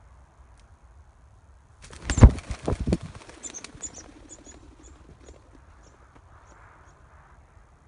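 A bird flushing: a sudden burst of loud wing flapping about two seconds in, lasting about a second, then a string of short high notes that fade as it flies off.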